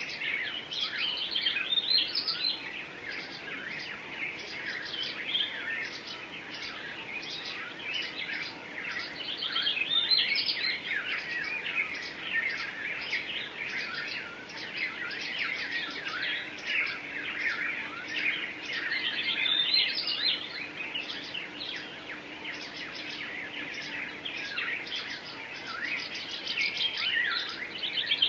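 Several songbirds singing together, a dense chorus of overlapping chirps, trills and quick pitch sweeps.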